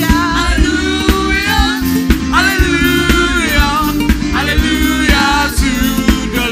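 Live gospel worship music: a singer's melody over a band with bass, guitar and drums keeping a steady beat.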